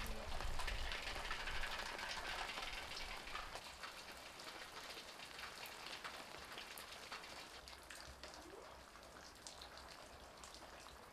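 Steady rain falling on wet ground and roofs, an even hiss with many separate drips, growing quieter over the second half.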